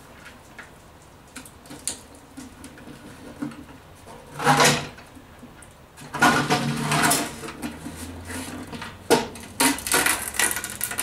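Plastic cover of a Ubiquiti AirFiber 24 being pried off its silicone-sealed housing with the end of a screwdriver: irregular scraping, creaking and sharp clicks. There is a louder scrape about halfway through and a busier run of scraping a little later.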